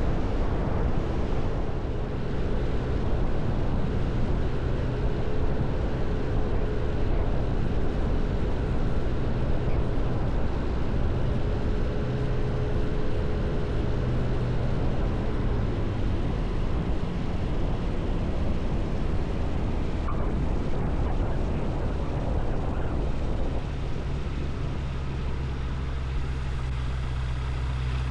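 Rotax 914 Turbo four-cylinder engine and propeller of a Zenith 701 STOL light aircraft running at low power, mixed with rushing air, through the approach and landing roll. About 24 seconds in it drops to a steadier, slightly quieter idle as the plane slows on the runway.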